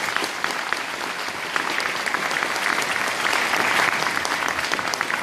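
An audience applauding: many people clapping steadily at once.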